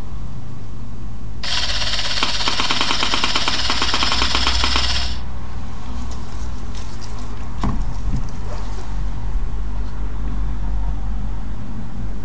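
3Shape TRIOS intraoral scanner buzzing with a very fast, even rattle for about four seconds while it captures the bite, starting and stopping abruptly. A single short knock follows a few seconds later, over a low steady hum.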